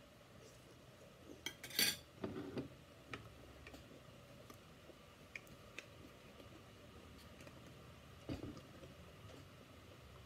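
Spoon and fork clinking and scraping against a ceramic plate while eating, with the loudest clatter just under two seconds in, then scattered light ticks and a softer knock near the end.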